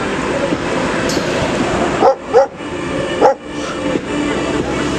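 A dog barks three times, two quick barks about two seconds in and a third about a second later, over steady background music.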